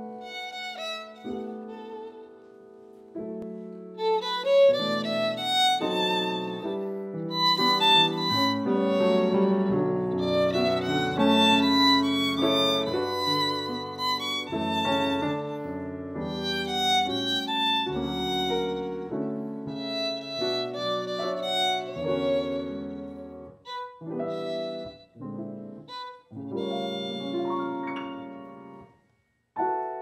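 Violin and grand piano playing jazz together, the violin carrying the melody over piano chords. The music stops briefly about a second before the end, then the violin comes back in.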